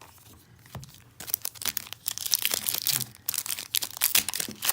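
Wrapper of a football trading-card pack being torn open and crinkled in the hands, an irregular crackling that starts about a second in.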